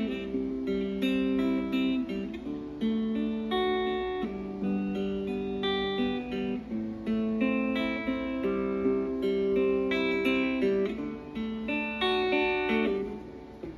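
Electric guitar played through a Positive Grid Spark Go portable amp on its clean preset: individually picked notes and chord arpeggios ringing into each other, with a brief pause near the end.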